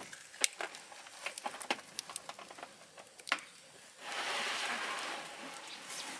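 Wood fire crackling and popping in a wood-burning stove, with irregular sharp snaps. For about two seconds near the end a hiss rises over the crackle.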